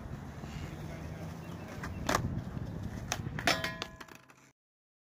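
Skateboard knocking on concrete as the board tips and slaps down: a few sharp clacks, the last one with a short metallic ring. The sound then cuts off suddenly to dead silence.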